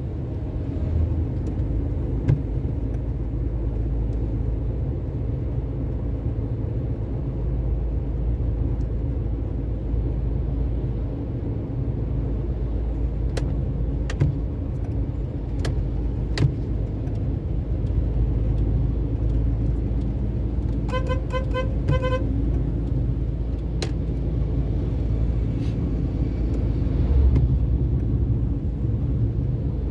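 Steady low rumble of a vehicle travelling along a road. About two-thirds of the way through, a horn gives about five quick beeps.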